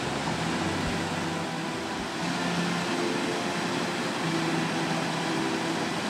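Steady rush of river water pouring over a weir and through the rapids below it, with soft background music holding low sustained notes.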